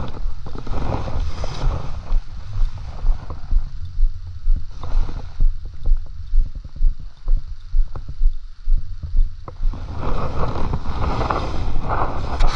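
Wind rumbling and buffeting on the microphone, with water splashing near the end as a landing net goes in under a hooked fish.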